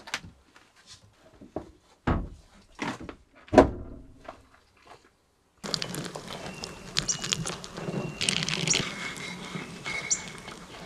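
Clicks and thunks of a truck camper's door being unlatched and pushed open, with a few separate knocks. About five and a half seconds in, a steady splashing hiss starts: water pouring from a metal bottle onto a hanging potted plant.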